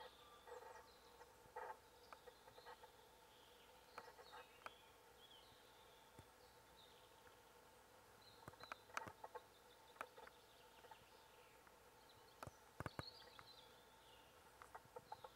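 Faint outdoor hush with small birds giving short high chirps every second or so, and a few scattered sharp clicks.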